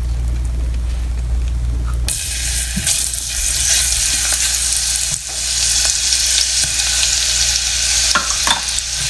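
Minced garlic hits hot oil in a pot about two seconds in and starts sizzling, then keeps frying with a steady sizzle as a silicone spatula stirs it. Before that there is only a low hum.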